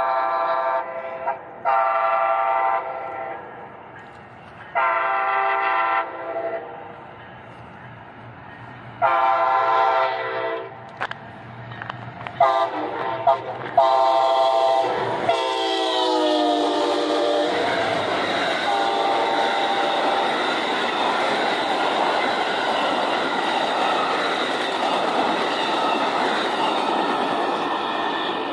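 Passenger train's locomotive horn sounding about six blasts of a multi-note chord as it approaches. The last blast drops in pitch as the locomotive goes by. It gives way to the steady rumble of the passenger cars' wheels rolling past on the rails.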